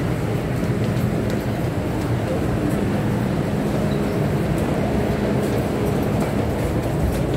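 Steady low rumble with a constant hum from an MTR subway train standing at the platform with its doors open, while passengers crowd aboard.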